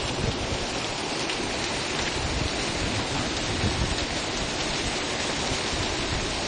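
Heavy rain pouring down steadily, an even, unbroken hiss of water hitting surfaces.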